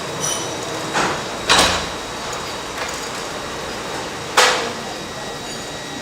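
Iron bars at an induction heating machine clanking twice, about three seconds apart, over steady machine noise with a faint high whine.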